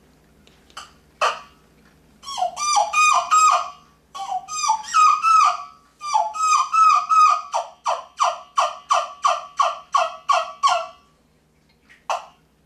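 Deadly Attraction Game Calls yelper, a hand-cupped turkey call, sounding a couple of short sharp clucks and then three runs of wild-turkey hen yelps. Each note breaks from a high tone down to a lower one, at about three notes a second, with short pauses between the runs, and one more short note near the end.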